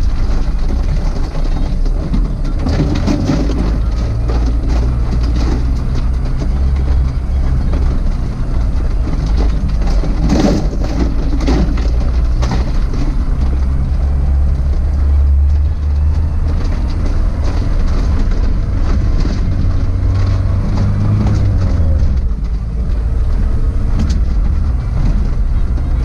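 Suzuki Jimny 4x4 driving slowly over a rough road: a steady engine drone that shifts in pitch a few times as the engine speed changes, with occasional knocks and rattles from bumps.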